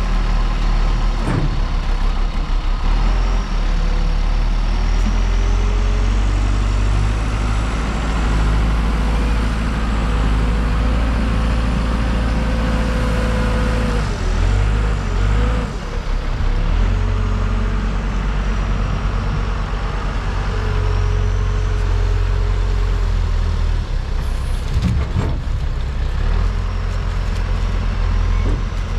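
JLG 10/55 telescopic handler's diesel engine running hard and steady while it lifts and carries a log, with a whine riding over it at times. The engine eases off briefly about halfway through, then picks up again.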